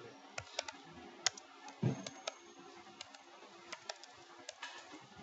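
Computer keyboard keys clicking in irregular bursts of typing, with one duller knock about two seconds in, over a faint steady hum.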